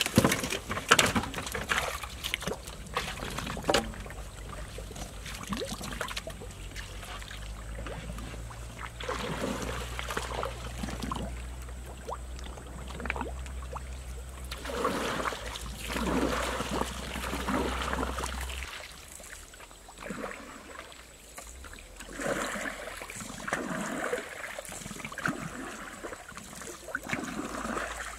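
Muddy river water splashing and sloshing as a bamboo boat is pushed off and poled out across it, in recurring swishes. A few sharp knocks of bamboo come in the first few seconds.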